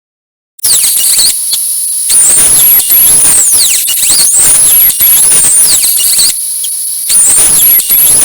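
A high-speed power tool running with a loud, high-pitched whine, cutting in abruptly about half a second in and dipping briefly now and then as it bites.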